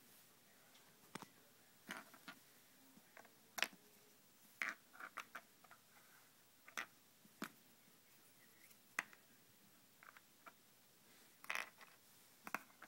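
Small plastic toy playset barrels being set down on a wooden floor: a scatter of light, sharp clicks and taps, a dozen or so at irregular intervals.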